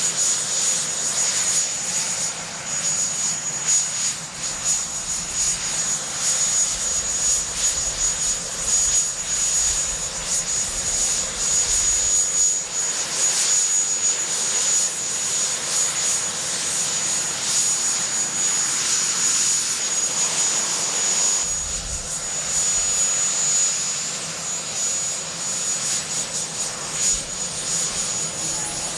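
Marine One, a Sikorsky VH-3 Sea King helicopter, running on the ground: a steady high turbine whine over a broad rushing roar from its twin turboshaft engines and turning rotors, with a faint rising tone coming in near the end.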